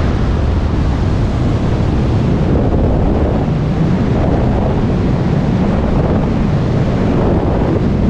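Loud, steady rush of freefall wind buffeting a skydiver's camera microphone at full freefall speed.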